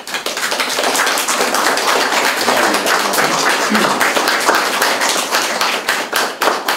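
A small crowd applauding with dense, steady hand-clapping, which thins into more separate claps near the end.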